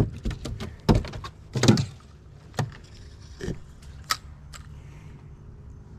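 Handling noise on a small fishing boat: a string of sharp knocks and rattles, loudest in the first two seconds and thinning out by about five seconds in, over a low steady hum.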